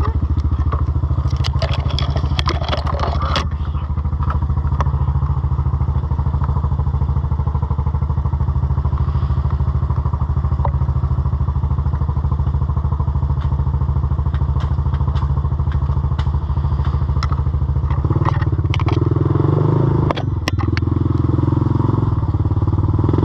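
Off-road vehicle engine running steadily, with a cluster of clattering knocks in the first few seconds. About eighteen seconds in the engine revs up louder, drops off briefly, then revs again.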